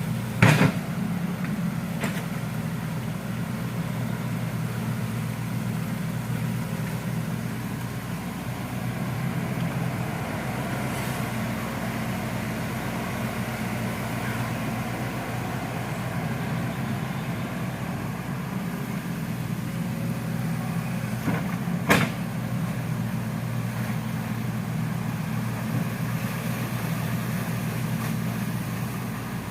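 Hitachi excavator's diesel engine running steadily while it digs a ditch, with a sharp knock just after the start and a louder one about 22 seconds in.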